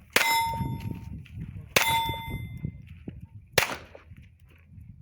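Three pistol shots about 1.7 seconds apart. The first two are each followed by the clear ring of a hit steel target; the third has no ring.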